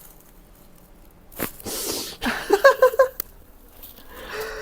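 A person's voice, not in words: a breathy exhale and then a quick run of short laughs, with a sharp click just before.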